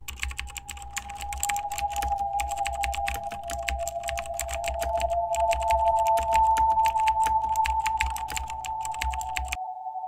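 Rapid, dense clicking like typing on a keyboard, over a steady drone of two close tones that slowly drift in pitch. Near the end the clicking and a low rumble cut off suddenly, while the drone carries on.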